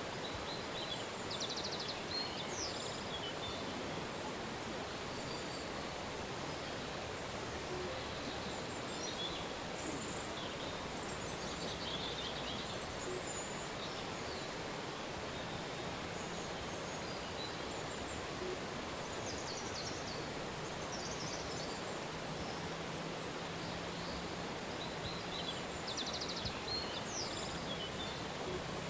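A river's steady rushing, with birds chirping and trilling over it now and then.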